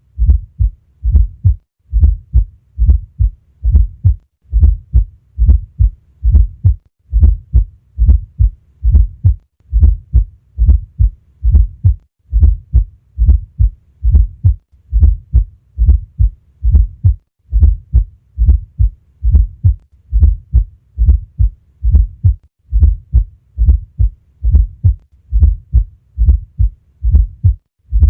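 Auscultated heartbeat recorded at the cardiac apex: low, dull thuds repeating in a steady rhythm, with an extra fourth heart sound (S4 gallop) just before each first heart sound.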